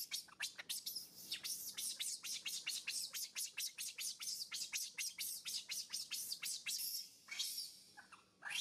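Baby macaque crying in distress, a fast run of short, high-pitched squeals, about five a second, each falling in pitch. The calls thin out to a few spaced ones near the end.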